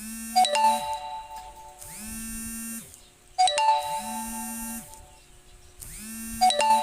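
Mobile phone ringing with an incoming call: a short melodic ringtone phrase that repeats about every three seconds, three times.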